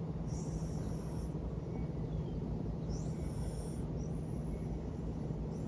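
Songbirds singing outside, heard faintly through a closed glass door: two short, high phrases of song, one near the start and one about three seconds in, with a few faint chirps between. A steady low hum runs underneath and is the loudest sound throughout.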